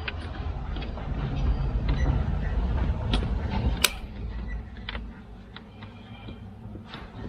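Creaking and rustling of a child car seat being pushed and worked into place on a vehicle seat, with a low rumbling handling noise and a few sharp clicks in the middle.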